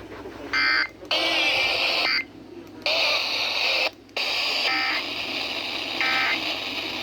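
Emergency Alert System SAME header played over a radio broadcast: harsh, buzzy digital data tones in bursts of about a second each, with short silent gaps between them. The bursts signal the start of an EAS alert, here a test message.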